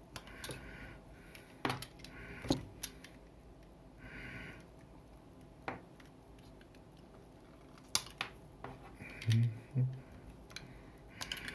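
Electrical wire ends being stripped of insulation with a hand cutting tool: a scattered series of sharp snips and clicks with short scraping sounds between them.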